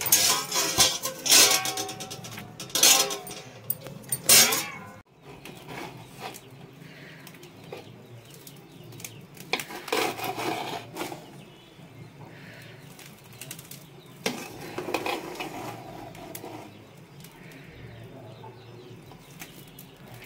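Metal ladle scraping and knocking against the side of a large metal cooking pot while cooked biryani rice is stirred and turned, in several bouts.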